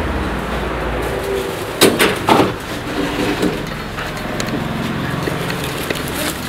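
Heavy-vehicle clutch plates being handled on metal shelving, with a few loud metallic clanks about two seconds in and lighter knocks after, over a steady low hum.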